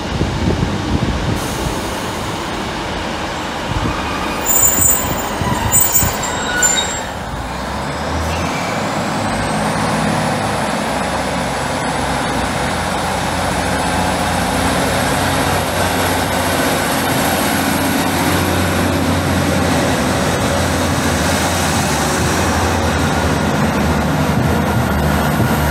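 Diesel passenger train at the platform. A few brief high squeals come first, then a high whine that rises for a couple of seconds and holds steady over the low hum of its engines. Wind buffets the microphone in the first few seconds.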